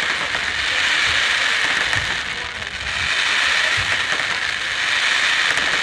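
Fireworks crackling continuously, a dense stream of tiny pops, with a few faint low thumps underneath.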